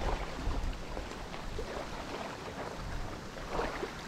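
Wind buffeting the microphone over small waves lapping at a gravel lakeshore, with a few faint ticks.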